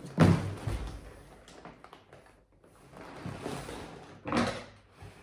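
A large, heavy cardboard Lego set box is tipped over and laid flat on a table, landing with a thump just after the start, followed by cardboard scraping and rubbing. A second knock comes a little past four seconds in as the box is handled.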